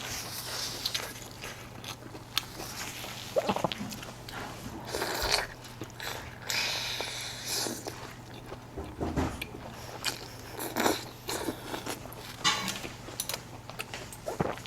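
Close-miked mouth sounds of a person eating: irregular wet bites, chewing and smacking, with a faint steady hum underneath.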